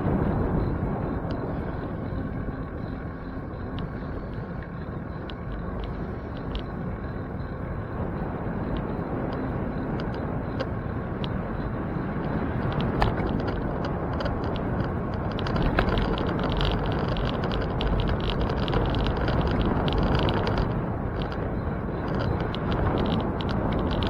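Wind rumbling over the microphone and road noise from a bicycle in motion, with scattered light ticks.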